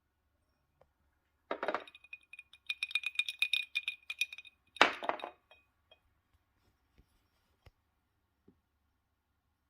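A glass miniature whiskey bottle being handled. A knock is followed by about two seconds of quick clinks and rattling with a ringing glass tone, then a louder knock just before halfway, and a few faint ticks near the end.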